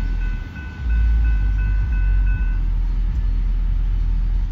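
Freight cars of a BNSF freight train rolling past on jointed track with a loud low rumble. A high-pitched squeal pulses about three times a second and fades out about halfway through.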